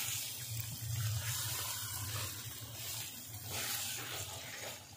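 Chicken curry with freshly added cream sizzling in a hot pan while a wooden spatula stirs it, over a steady low hum.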